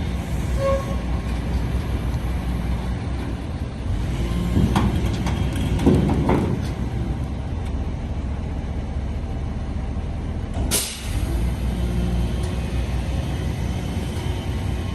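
Excavator's diesel engine running with a steady low rumble, getting louder for a couple of seconds around the middle, with one brief sharp hiss about eleven seconds in.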